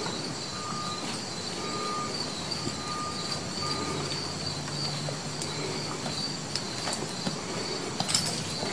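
Steady background noise with a constant high-pitched whine, and four short electronic beeps about a second apart in the first few seconds.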